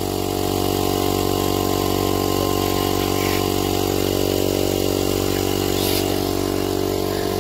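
Air compressor running steadily with an even, unchanging hum.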